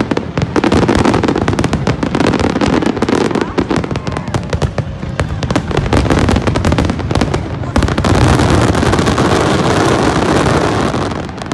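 Fireworks display: a rapid, dense run of bangs and crackles. About eight seconds in it thickens into a continuous crackling rumble, which falls away near the end.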